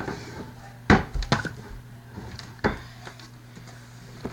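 A few sharp knocks and clunks of objects being handled and set down: the loudest about a second in, a couple of smaller ones just after, and another near three seconds.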